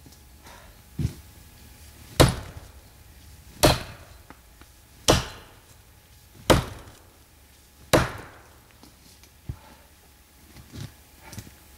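Axe chopping into a tree: five hard strokes at an even pace of about one every one and a half seconds, then a few lighter knocks near the end. The axe is a Condor Woodworker's axe with a soft 1045 carbon-steel head.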